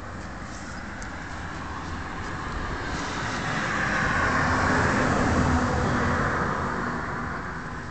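A vehicle passing by, growing louder toward the middle and fading away again.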